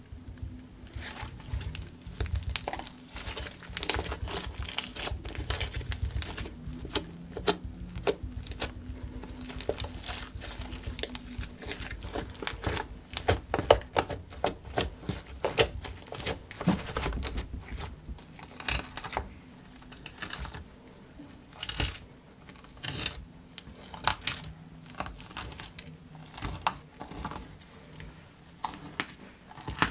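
Glitter slime being stretched, squeezed and poked by hand, giving irregular sticky clicks and small pops.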